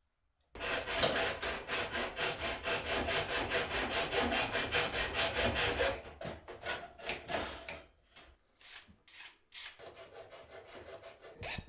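A hacksaw cutting metal tile trim in a plastic mitre box. Fast, even back-and-forth strokes run for about five seconds, then give way to slower, lighter strokes as the cut is finished.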